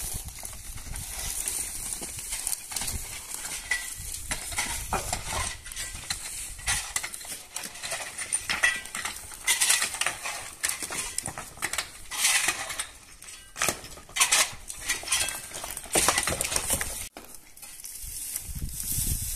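Metal hand tools, a pickaxe and shovel, scraping and knocking on loose stone rubble in irregular strokes, with a few louder clattering strikes.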